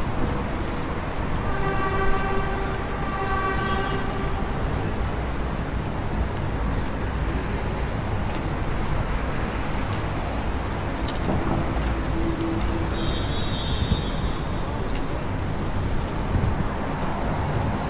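Steady city street traffic noise, a dense low rumble of passing vehicles. About a second and a half in, a held pitched tone sounds for a couple of seconds over it.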